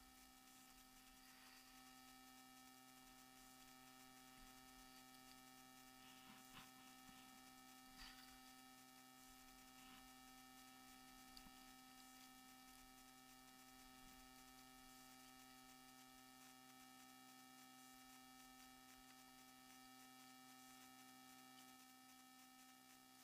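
Near silence: a faint steady electronic hum, the recording camera's own self-noise, with a few faint ticks.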